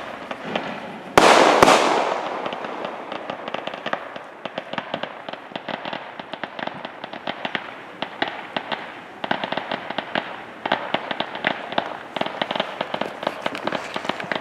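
Fireworks going off: two loud bangs about a second in, then a long run of rapid crackling pops.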